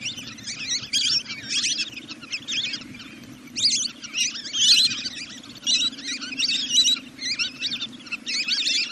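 Recorded duck calls played as a night-time lure: clusters of high, squeaky, twittering calls repeating about once a second, over a steady low hum.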